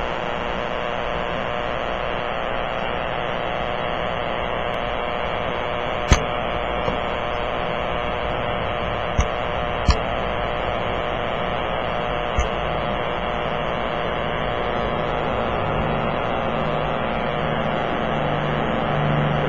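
Power-line radio interference heard through a Kenwood TS-480 transceiver in AM mode on the 6-metre band (50.125 MHz): a steady buzzing static with a hum in it, broken by a few sharp pops between about six and twelve seconds in. The noise is the sign of faulty power-line hardware near the station, which the power company is tracking down.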